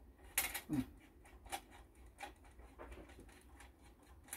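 Faint, irregular light clicks and taps of metal as hands handle a Vapalux M320 kerosene pressure lantern during its alcohol preheat.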